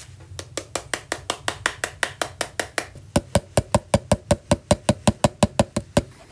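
A small hammer tapping rapidly and regularly around the metal bezel rim of a Moto Guzzi Le Mans Mk1 instrument gauge, working the rim down onto the gauge case. About three seconds in, the taps become louder and heavier, at roughly seven a second.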